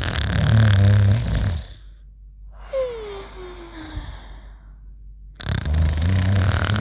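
Cartoon snoring: a rumbling snore, then a whistle that falls in pitch on the out-breath, then a second rumbling snore starting about five seconds in.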